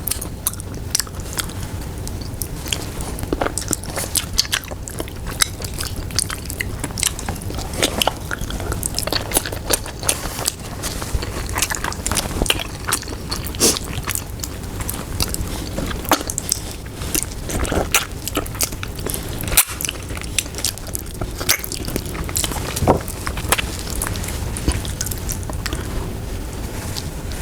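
Close-miked eating sounds: chewing and biting of soft braised pork leg (pata tim) with rice, with many small wet mouth clicks and smacks spread throughout, over a steady low background hum.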